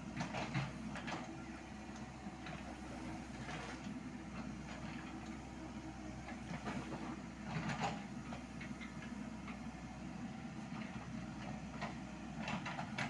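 Komatsu PC78US mini excavator's diesel engine running steadily under load, with a few short bursts of stony clatter and scraping as the bucket works the gravel pile: about a second in, around four and eight seconds, and near the end.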